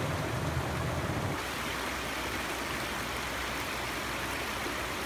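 Mountain trout river running over rocks and shallow rapids, a steady rush of water. A low rumble under it cuts off abruptly about a second and a half in.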